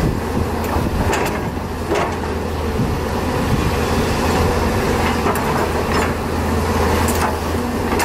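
Toy RC excavator's small electric motors and plastic gearboxes whirring steadily as it digs sand, lifts its arm and swings the turret, with a few sharp clicks.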